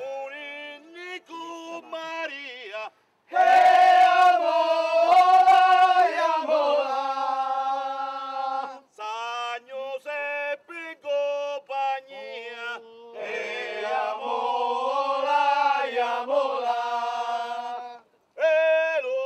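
Mixed group of men and women singing a traditional tonnara fishermen's work chant in chorus, with long held notes. The singing breaks off briefly about three seconds in and again near the end.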